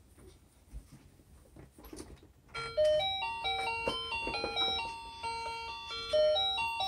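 A simple electronic chime-like melody starts suddenly about two and a half seconds in, single clear notes stepping up and down in a bouncy tune; before it there are only faint rustles and light knocks.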